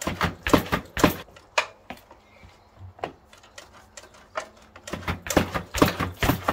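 Samebike XD26 electric mountain bike's front suspension fork and rear shock compressing and rebounding as a rider bounces his weight on it, giving a series of short knocks and clunks. They come thickest in the first second and again near the end.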